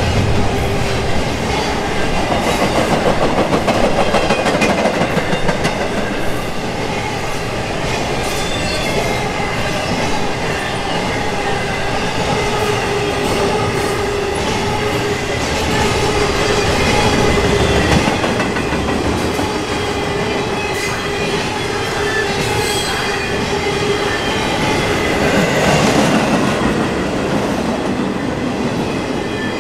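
Intermodal freight train's double-stack well cars and trailer cars rolling past at speed: steel wheels rumbling and clacking over the rails, with a thin wheel squeal coming and going.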